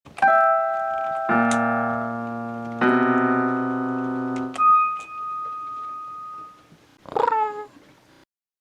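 Short piano intro jingle: a few notes, two sustained chords and one high note left to ring, then a single cat meow near the end.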